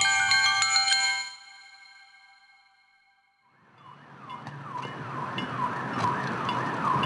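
Chime-like ringing tones stop about a second in and die away to near silence. Then an emergency vehicle siren, rising and falling about twice a second, fades in over a low rumble of traffic.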